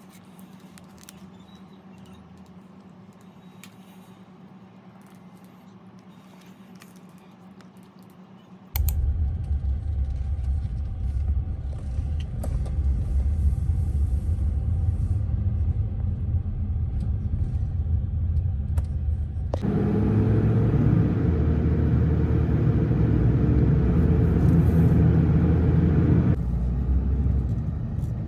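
Faint quiet room tone with small clicks, then about nine seconds in a loud, steady low rumble of a car driving, which grows louder about twenty seconds in and eases again near the end.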